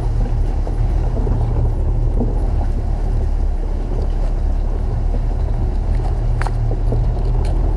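Vehicle engine running steadily under way, a low drone with wind rush on the microphone from riding on the roof. A couple of brief clicks or knocks near the end.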